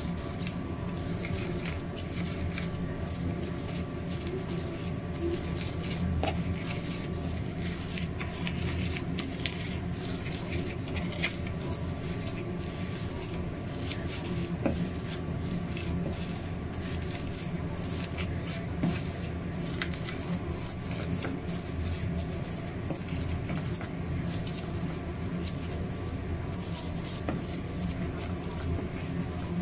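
Wooden pestle crushing and grinding fresh sweet corn kernels on a wooden plate: many rapid, uneven soft knocks and wet squishing of kernels, over a steady low hum.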